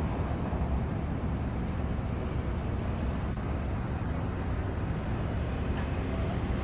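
Steady road and engine rumble of a yellow taxi driving through city traffic, heard from inside the cab.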